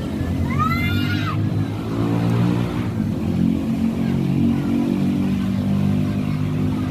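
A cat gives one meow, rising then falling in pitch, about half a second in. Then a motor vehicle engine runs with a steady low drone through the rest.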